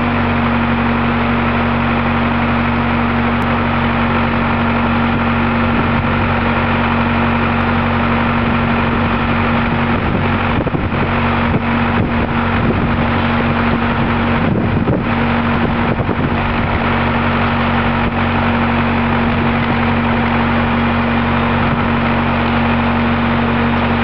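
Machinery of a remote-controlled tracked sludge dredger running steadily, a constant mechanical drone with a strong even hum. It turns a little rougher around the middle.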